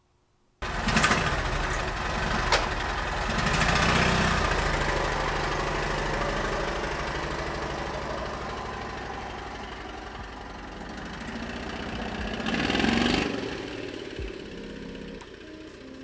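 Briggs & Stratton V-twin golf cart engine running through a custom exhaust built around a Honda Civic muffler. It cuts in abruptly about half a second in and is loudest in the first few seconds. It swells once more about three-quarters of the way through, then fades gradually as the cart drives away.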